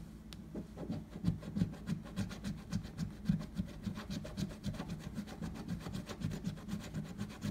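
Scratching the latex coating off a paper lottery scratch-off ticket, in quick, even strokes at about three a second, starting about half a second in.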